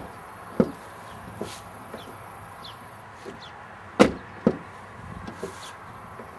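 A pickup truck's cab door being shut and opened, with sharp latch clunks and thuds. The loudest comes about four seconds in, with another just after it and a smaller one near the start.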